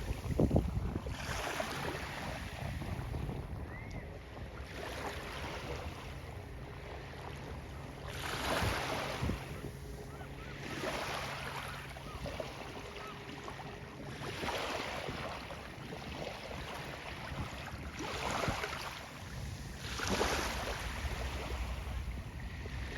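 Water rushing and splashing against a windsurf board moving through chop, in hissing surges every few seconds over a steady low rumble of wind on the microphone.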